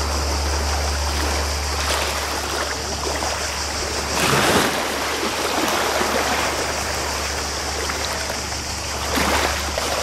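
Wind on the microphone over calm sea water, with a steady low rumble throughout. The noise swells briefly about four seconds in and again near the end.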